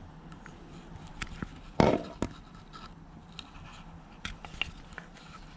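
A GoPro camera being handled and worked into position: scattered light clicks and knocks, the loudest a sharp knock about two seconds in.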